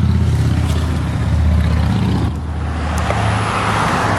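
A motor vehicle's engine running close by, a low pulsing hum, with a broad road-like hiss swelling up in the second half, as of a vehicle driving past.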